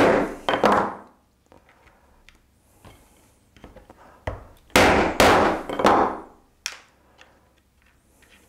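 Hammer blows on a wooden block, driving steel T-nuts into the wooden speaker cabinet panel: a couple of sharp knocks near the start, then a quicker run of four or five knocks past the middle.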